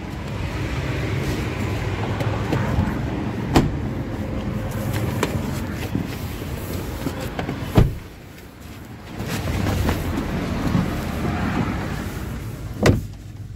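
Car doors opening and thudding shut over steady street traffic noise, with three sharp knocks; the loudest thud comes about eight seconds in.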